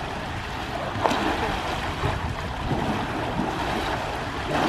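Pool water splashing and sloshing as Asian elephants wrestle and roll in it, with a sharper splash about a second in and another near the end.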